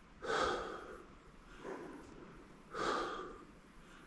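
A man's slow, deep breaths close to the microphone, three of them about a second and a half apart: a rifleman steadying his breathing while holding on the target before the shot.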